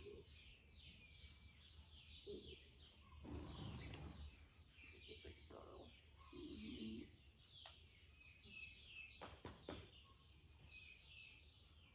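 Faint, busy chirping of small birds, with quiet rustling and a few sharp clicks about nine to ten seconds in.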